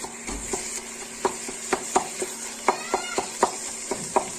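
Wooden spoon mashing and stirring cooked saag (greens) in a steel pressure-cooker pot, knocking irregularly against the pot about three times a second, over a faint sizzle of the oil.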